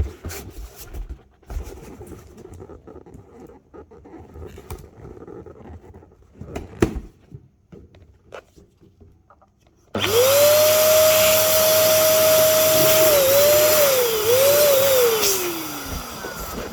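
Faint handling clicks and rustles. About ten seconds in, an electric air blower switches on suddenly and runs loudly with a steady whine. Near the end the whine wavers and slides down in pitch.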